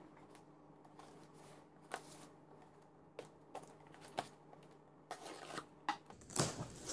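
A knife scraping and clicking as it slices along the packing tape on a cardboard box, in short separate strokes. Near the end comes the loudest part, cardboard and tape rustling as the box is pulled open.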